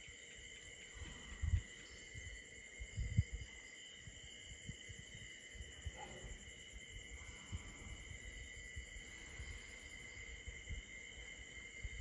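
A steady chorus of night insects trilling, holding several even high tones. Under it are scattered soft low thumps, the two loudest about a second and a half and three seconds in.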